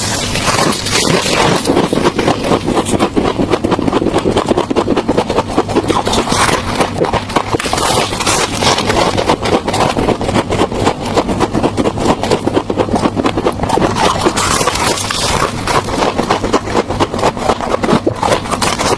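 Close-miked crunching of scraped refrigerator frost, a dense continuous run of crisp crackles and scrapes.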